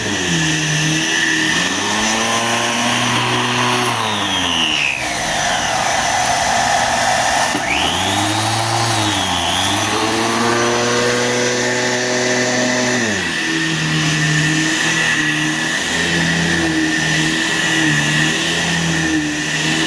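Bissell Healthy Home upright vacuum cleaner running on carpet with its brush roll spinning: a steady high motor whine over a lower hum, whose pitch dips and recovers twice as the vacuum is pushed and pulled through the pile.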